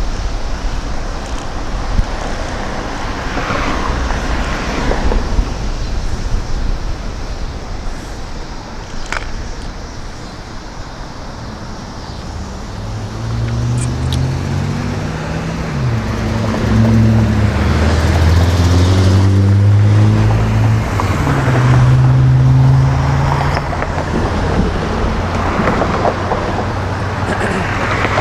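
Road traffic: cars passing close by with tyre and wind noise, and from about halfway through the low hum of nearby vehicle engines, rising and falling in pitch.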